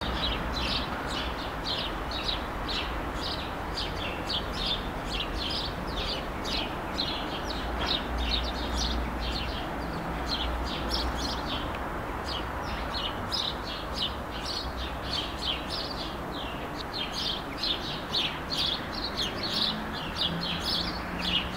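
Small birds chirping continuously, with many short high chirps each second over a steady background noise.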